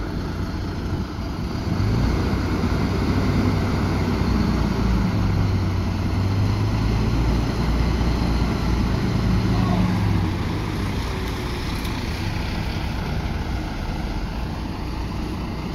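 Heavy vehicle engine running, louder and steadier from about two seconds in and easing back about ten seconds in.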